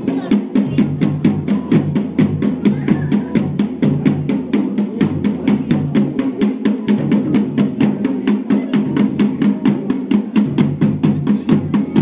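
Music with a fast, steady drumbeat of about five strokes a second over a low, sustained melody that changes note every second or two.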